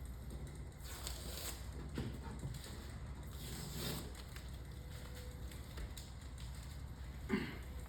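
Soft rustling and rubbing of a vinyl stripe being pressed and smoothed onto a car's body panel by hand, in several short strokes over a low steady hum, with a brief louder handling sound near the end.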